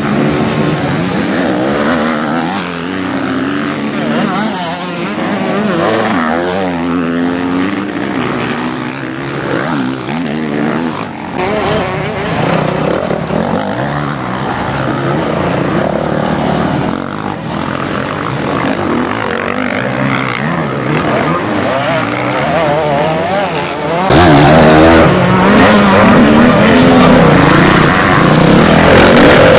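Motocross dirt bike engines revving hard as the bikes race on the track, their pitch rising and falling with throttle and gear changes, several bikes at once at first. The engine sound jumps louder at about 24 seconds in.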